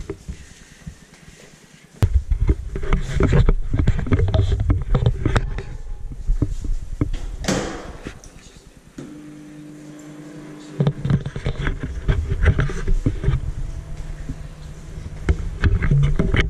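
Handheld camera rubbing and knocking as it is carried, with footsteps. About halfway through, once its dial has been turned, a microwave oven starts running with a steady low hum.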